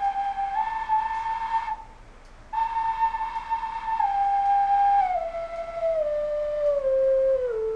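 Homemade wooden Native American-style flute played one held note at a time. It steps up the scale, breaks briefly for breath just before two seconds in, then steps down note by note to its lowest note. It is being run through its scale against a tuner, and the maker finds it has gone sharp rather than flat.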